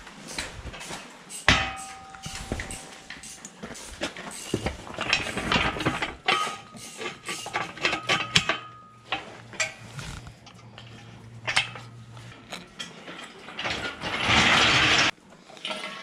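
Steel parts of an engine hoist clanking and clinking as the crane is bolted together. About one and a half seconds in, a sharp metal knock rings on briefly. Near the end, a loud harsh noise lasts about a second and cuts off suddenly.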